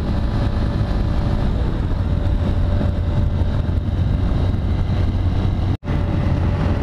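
Motorcycle engine running at a steady highway cruising speed, with wind rushing past the microphone. The sound drops out for an instant near the end.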